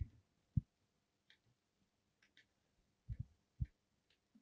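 Screwdriver undoing a toilet seat's blind-fixing screw: a few faint clicks spread out, and short soft knocks, a cluster of three near the end.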